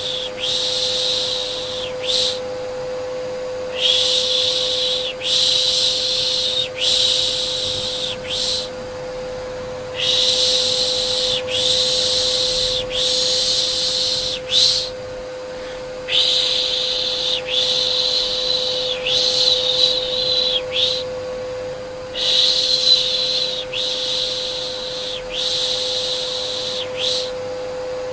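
Rhythmic 'shhh' shushing for soothing a baby: a run of long hissing shushes, one after another, broken by short pauses, over the steady hum of a vacuum cleaner.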